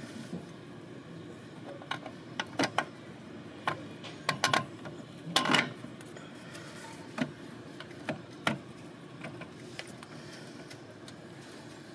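Irregular clicks, knocks and a short scrape from an RV waste valve and its flange hardware being handled and worked into position, over a steady low background noise. The loudest event is a longer scrape in the middle.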